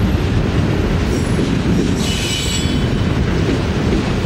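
Freight train of autorack cars rolling past, a steady rumble of steel wheels on the rails. A brief, high wheel squeal comes about two seconds in.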